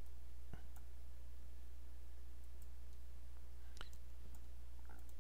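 A few sharp computer mouse clicks, one about half a second in and more near four and five seconds, over a steady low hum.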